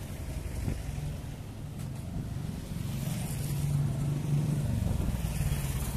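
Motorcycle engine running as it rides past close by, a steady low hum that grows louder about halfway through and begins to fade near the end, over general street traffic.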